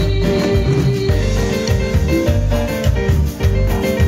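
A live band plays Latin dance music at full volume, with keyboard and electric guitar over bass and drums keeping a steady beat.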